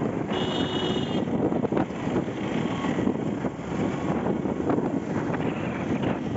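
Road and traffic noise from a moving vehicle, with wind buffeting the microphone. A brief high-pitched beep sounds about a third of a second in.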